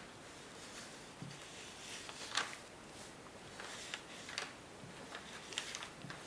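Faint, scattered light taps and short scratchy scrapes of a small encaustic painting iron being set down and drawn over a beeswax-coated card to make grass blades.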